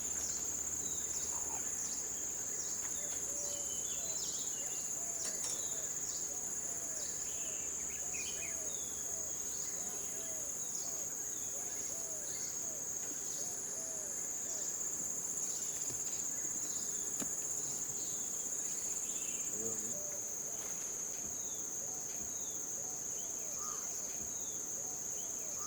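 Jungle insect chorus: a steady high-pitched drone, with a second insect pulsing about once a second above it. Short animal calls are scattered through it, including a run of low calls repeated about twice a second through the first two-thirds.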